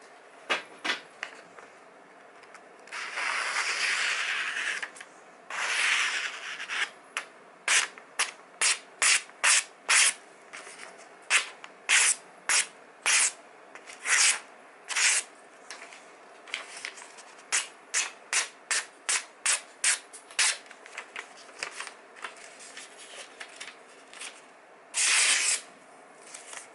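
A kitchen knife with a mirror-polished edge slicing through a glossy catalogue page to test its sharpness: a long run of short hissing cuts, with longer cuts about three and six seconds in and again near the end.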